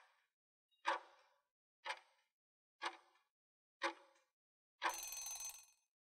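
Countdown-timer sound effect: a short tick about once a second, followed near the end by a ringing alarm-like tone of about a second as the count reaches zero.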